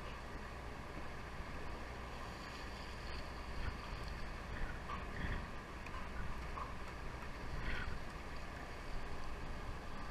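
Steady low rumble of a sportfishing boat with water washing along its hull, and some wind on the microphone.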